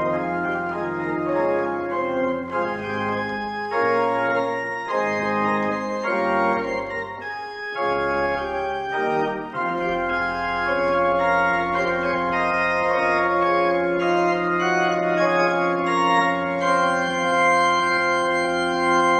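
Organ playing the closing music of a church service: a run of chords changing about once a second, then a long held final chord over a sustained bass note from about halfway.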